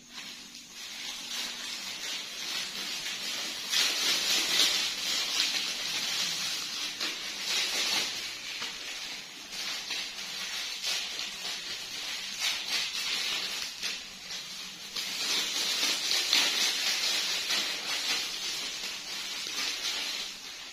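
Continuous crinkly rustling hiss that swells in loudness twice, from about 4 to 8 seconds in and again from about 15 to 20 seconds in.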